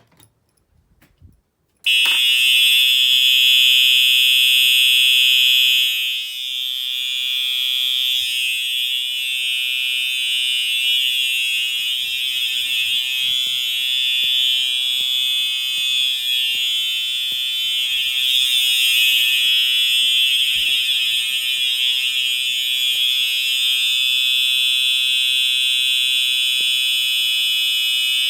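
Simplex TrueAlert electronic fire alarm horn set to continuous, sounding one loud, steady high-pitched tone, set off by a smoke detector test. A few small clicks come first, and the horn starts about two seconds in.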